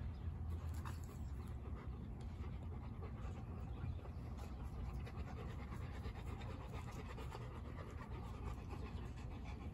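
Labrador retriever panting steadily with its mouth open, over a low steady rumble.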